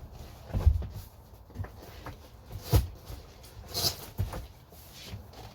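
Upholstered boat cushions being fitted and pressed into place to form a berth: a series of dull thumps and knocks with scuffing rustles, the loudest thumps a little under a second in and nearly three seconds in.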